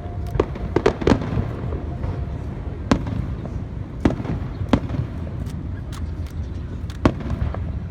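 Aerial firework shells bursting: sharp bangs at irregular intervals, several in quick succession about a second in and single ones after, over a steady low rumble.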